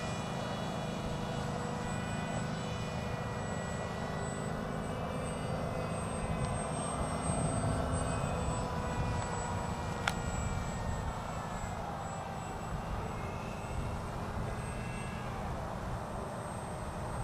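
Electric RC plane's EMax 2800kv brushless outrunner motor and small GWS propeller whining in flight, the pitch drifting slowly up and down as the plane flies around. A single sharp click about ten seconds in.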